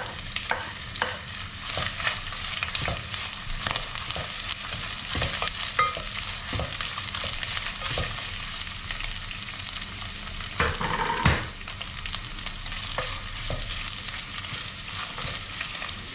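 Sliced onions and ginger sizzling in oil in a glass pot while a wooden spatula stirs them, knocking and scraping against the glass. A louder clatter comes about eleven seconds in.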